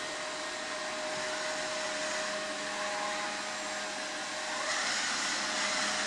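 Aiibot V9S robot vacuum cleaner running as it drives across the floor: a steady whir of its suction fan with a faint hum. About three-quarters of the way through, the whir grows louder and brighter.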